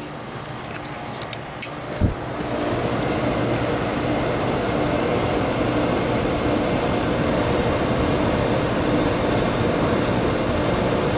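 A few light clicks and a thump about two seconds in, then an Amana 5P2MY window air conditioner running steadily and louder: fan blowing air over a hum from the rotary compressor. The compressor is running but not yet pumping, drawing about 2.7 amps against an allowed 5.2.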